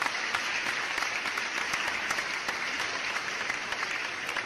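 Applause sound effect: a crowd clapping, dense and steady.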